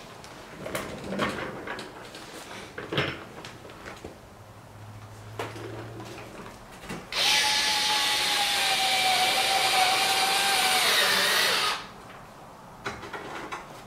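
Cordless drill/driver sinking one of the kit's sharp screws into a carbon fiber front splitter where there is no factory hole. Light handling clicks come first; about seven seconds in, the drill runs steadily for about four and a half seconds, its pitch sagging slightly before it stops.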